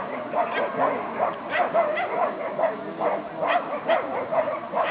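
A dog yipping and barking in quick short calls, about two or three a second.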